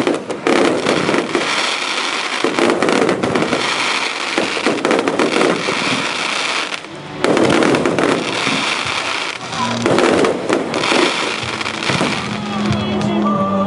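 Fireworks bursting and crackling densely, with rapid sharp pops throughout and a loud burst about seven seconds in. Near the end, music with held notes rises up through the crackle.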